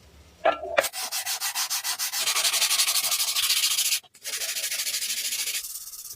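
Quick, even back-and-forth abrasive rubbing strokes, like hand sanding or filing, with a brief pause about four seconds in before a second run of strokes.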